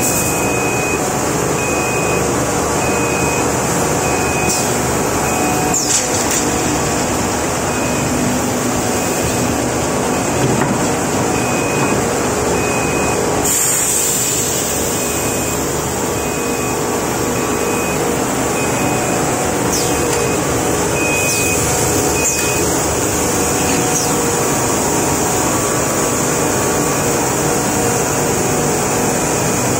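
Three-layer cast stretch film production line running: a steady loud mechanical hiss and hum with a high whine, and a short high beep repeating at a steady pace.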